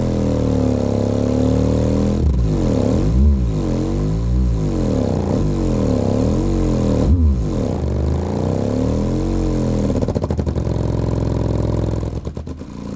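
A pair of Sundown Audio U-6.5 6.5-inch subwoofers playing bass test-tone sweeps in free air, the tones gliding up and down over and over. About ten seconds in and again near the end the sweep gives way to a fluttering, pulsing note.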